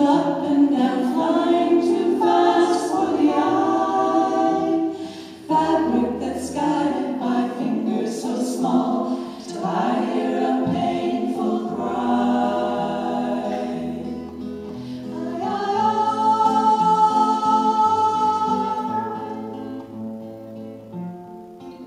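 A group of women singing a song in harmony, with a long held chord a little past the middle, then fading toward the end.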